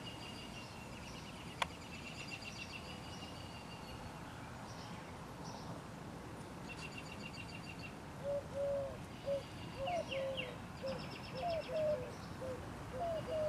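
Birds singing outdoors: repeated high, fast trills, and from about eight seconds in a lower series of short hooting notes that are the loudest sound. A single sharp click comes about one and a half seconds in.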